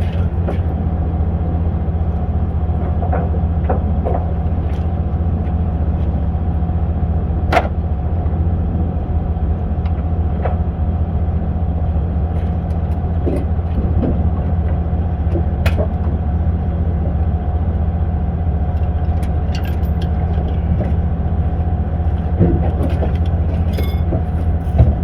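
Steady low drone of a running motor or machine, with a few light clicks and knocks over it, the sharpest about seven and a half seconds in and again near the end.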